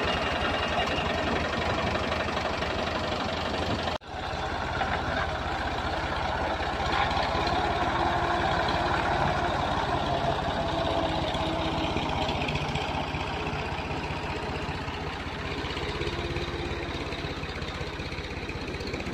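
Ford 4000 tractor engine running steadily with an even beat while hitched to a trailer loaded with logs, with a brief break about four seconds in.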